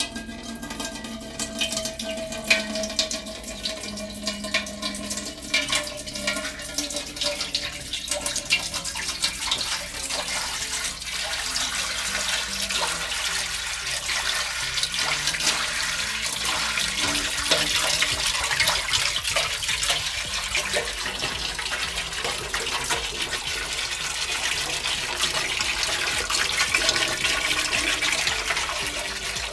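Water being poured into a large metal cooking pot: a steady splashing gush that gets louder about a third of the way through.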